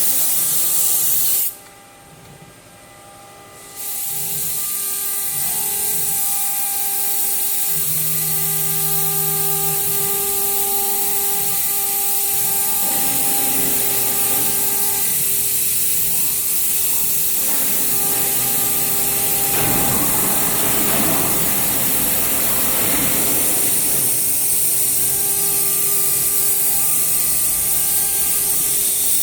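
CNC router's 3.2 kW spindle running with a loud high-pitched hiss, together with steady motor tones that start and stop as the machine's axes move. The spindle sound cuts out about a second and a half in and comes back about two seconds later. Around twenty seconds in, a rougher noise of the bit cutting joins it for a few seconds.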